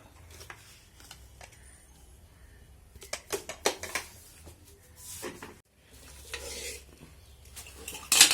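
Kitchen utensils clinking and knocking against metal pots and dishes, in scattered strokes. The loudest is a sharp clatter near the end.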